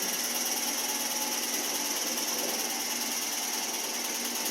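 Direct-drive (DD motor) washing machine spinning on its strong spin setting: a steady whirring hum with a hiss high up, holding level.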